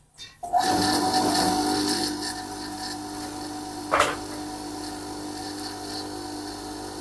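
Freshly rewound 1 HP single-phase water pump motor switched on: it starts at once about half a second in and hums steadily, louder for the first couple of seconds and then settling to an even run, the sign that the new windings and capacitor wiring work and the motor runs normally. One short click about four seconds in.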